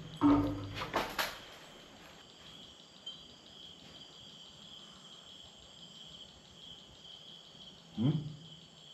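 A mostly quiet stretch under a steady faint high-pitched tone, with a man's brief voice sounds in the first second and a short questioning "hm?" about eight seconds in.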